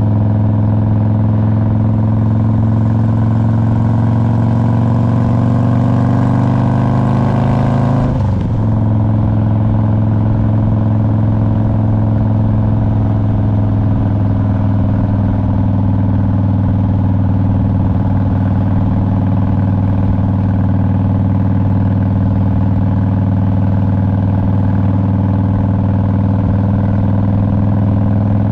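Harley-Davidson Road King's Twin Cam 88 V-twin running under way. The engine note climbs for the first eight seconds, breaks sharply about eight seconds in, then holds steady.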